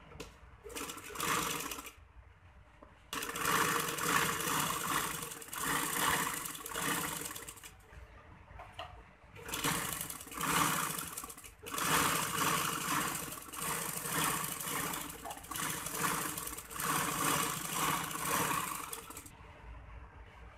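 Sewing machine stitching an edge seam along a shirt placket, running in several spells with short pauses and stopping shortly before the end.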